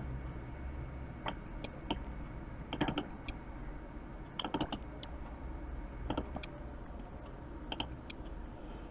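Computer mouse clicking, single clicks and quick double-clicks at irregular intervals, faint over a low steady hum.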